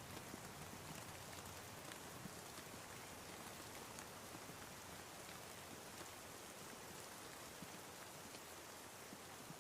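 Steady light rain falling, with faint scattered drops ticking.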